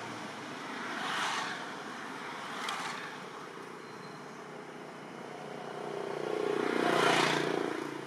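Road traffic: a motor vehicle passes, its engine hum and tyre noise building from about five seconds in to a peak near the end, after two smaller swells of passing traffic earlier.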